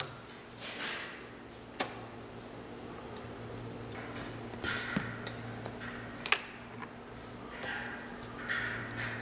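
Small hand tools (a pick and a small screwdriver) clicking and scraping against a plastic snowmobile throttle block and its metal pin and clip: a sharp click about two seconds in, the loudest a little past six seconds, with short scratchy rubs between. A low steady hum runs underneath.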